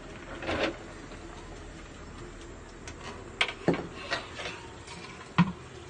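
A metal cooking pot and spoon clinking and knocking as the pot of pasta is handled and moved to the sink for draining: a soft knock about half a second in, a few clinks around three and a half to four seconds, and a sharp knock near the end.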